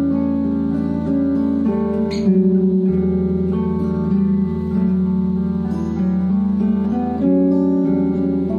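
Instrumental duet of acoustic guitar and electric guitar, notes plucked and strummed over a steady low sustained note.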